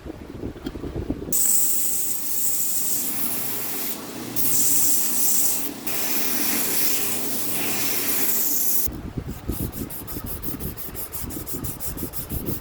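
Sanding on a knife: about a second of low rumble, then long stretches of steady abrasive hiss with short breaks, then fast back-and-forth rubbing strokes, about six a second, near the end.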